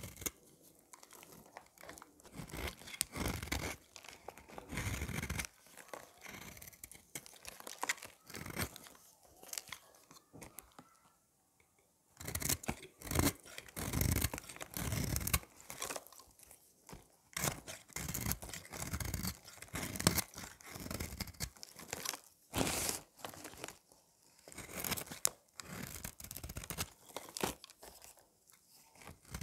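Utility knife blade shaving curls off a bar of dry, partly painted soap: crunchy scraping strokes in quick succession, with a short pause about eleven seconds in.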